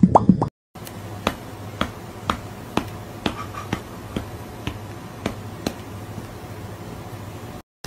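The last few of the 'pop cat' meme's quick popping mouth sounds. After a brief cut comes a run of sharp light clicks, unevenly spaced at roughly two a second, over a steady low hum.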